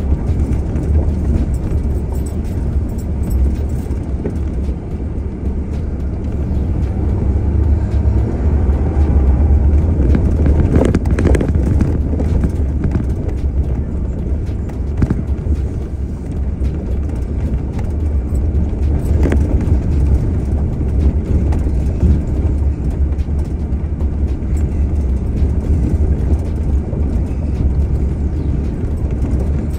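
Off-road vehicle driving over a dirt track, a steady low rumble of engine and tyres on the dirt, with a few sharper knocks from bumps, the clearest about ten and nineteen seconds in.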